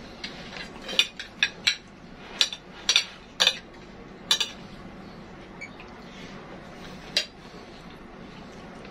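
Metal spoon clinking and scraping against ceramic plates of fatteh: a run of sharp clinks in the first four and a half seconds, and one more about seven seconds in.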